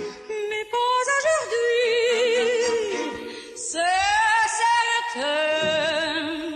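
Background music: a woman's singing voice holds long notes with a wide vibrato, sliding up to a higher note about four seconds in.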